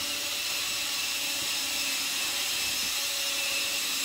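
Steady hiss with a faint, even hum underneath: continuous mechanical background noise with no breaks or strokes.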